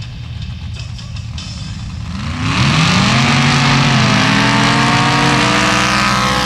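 Two Formula Offroad sand-drag cars idling at the start line, then launching about two seconds in. The engines rev up loud and climb steeply in pitch as the cars accelerate down the sand strip, with a brief dip in pitch partway through, and the pitch falls near the end as they pass.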